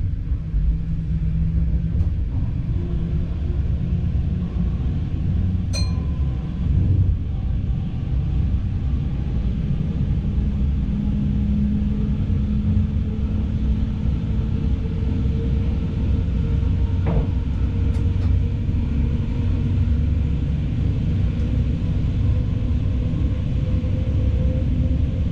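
Diesel multiple unit running along the line, heard from the driver's cab: a steady low rumble of engine and wheels on the track. A faint tone rises slowly in pitch in the second half, and a couple of brief clinks come through.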